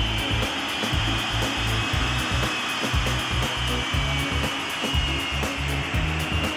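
Folland Gnat's Bristol Siddeley Orpheus turbojet running on a ground run: a steady jet whine that drifts slightly in pitch over a rushing exhaust noise, with an uneven low rumble underneath.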